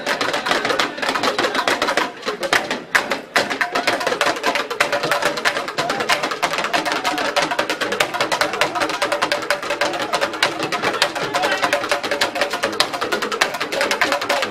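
An ensemble of Yoruba hourglass talking drums (dundun), beaten with curved sticks, playing a fast, dense rhythm, with a brief thinning of the strokes about two seconds in.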